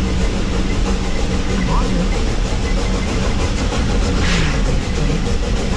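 Steady rumble of a steam train running along the track, heard from aboard, with a short hiss about four seconds in.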